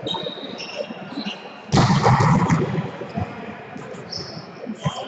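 Indoor volleyball rally: sneakers squeaking briefly on the court floor and the ball knocking, with one loud burst of noise about two seconds in.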